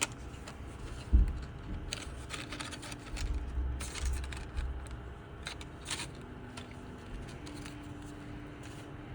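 Small plastic clicks and scrapes of a 3D-printed part being worked off its stuck support base by hand, with one dull thump about a second in.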